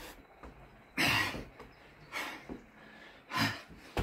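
A man breathing hard from the exertion of Navy Seal burpees, with a sharp, forceful exhale about once a second; the strongest comes about a second in.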